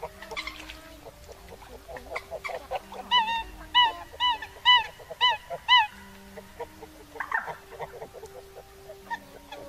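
Eurasian coots calling: a run of about six loud, sharp, honking calls at roughly two a second in the middle, with softer calls and clicks before and after.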